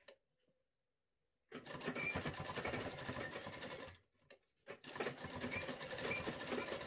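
Sewing machine stitching through fabric in two runs. It starts about a second and a half in, stops briefly around the middle, and starts again.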